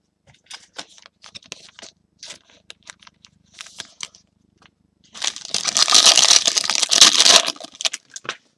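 Scattered light ticks of trading cards being handled, then, about five seconds in, a loud crinkling and tearing of a trading card pack wrapper being ripped open, lasting about three seconds.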